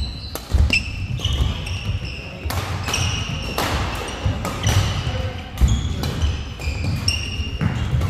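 Badminton doubles rally: sharp racket hits on the shuttlecock about once a second, with sneakers squeaking on the court floor and footfalls between them.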